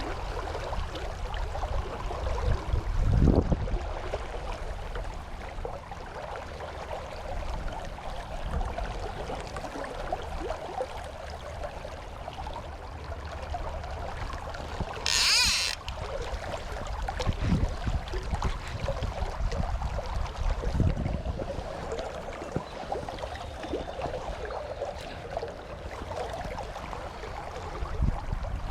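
River water running steadily, with wind gusting on the microphone as low rumbles several times. About halfway through comes one brief, bright hiss lasting about a second.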